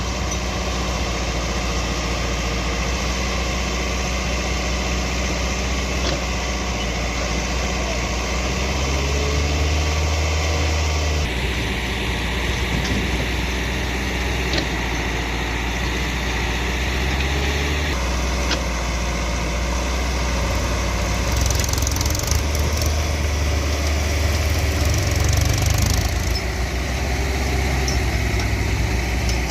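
Heavy diesel engine running steadily at a low, even pitch, its sound changing abruptly a few times.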